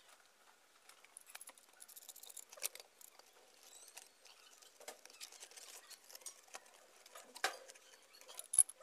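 Faint, scattered clicks and scrapes of a plastic pipe socket being screwed onto the threaded outlet of a DC submersible pump and tightened with a wrench, with a couple of sharper clicks near the end.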